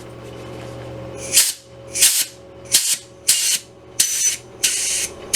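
CO2 gas blowback airsoft magazine venting pressurised CO2 out of its top in a series of short, loud hissing bursts, about one every 0.6 s, starting a little over a second in: the repaired magazine is holding its gas charge.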